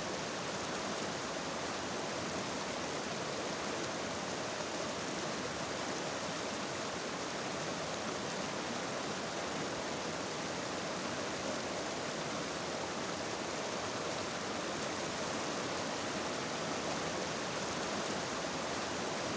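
Steady rush of flowing river water, even and unchanging throughout.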